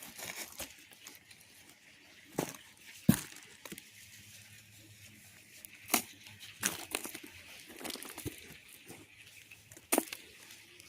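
Hands digging and sifting through damp potting soil, a low rustling broken by a few sharp knocks and clicks.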